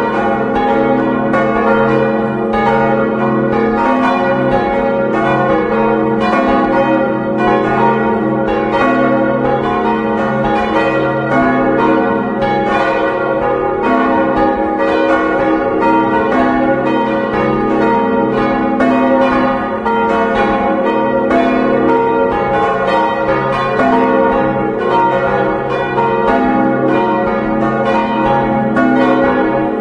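Church bells swung full circle and ringing together as a four-bell peal tuned to a Westminster chord. The clappers strike several times a second in an overlapping jumble over a steady ringing hum.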